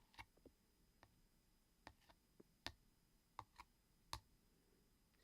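A dozen or so quiet, sharp clicks at an irregular pace, some in quick pairs: close-up ASMR clicking noises.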